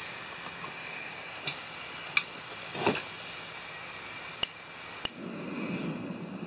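Small gas-canister camp stove being lit: gas hissing from the opened valve, a few sharp lighter clicks, then the burner catching about five seconds in and burning with a low rushing sound.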